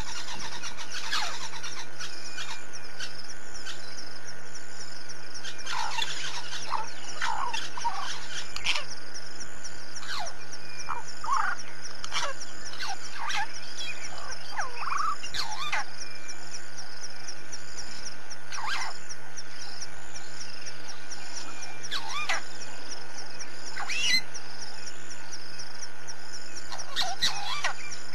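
Wild birds chirping and calling, many short calls from several birds, over a steady high-pitched insect buzz and a constant low electrical hum.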